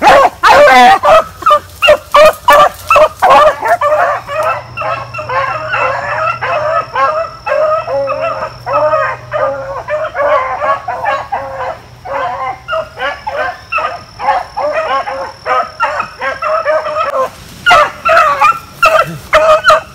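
Pack of rabbit hounds baying together on a rabbit's trail, overlapping calls in a continuous chorus. The chorus is loudest and closest in the first few seconds and again near the end.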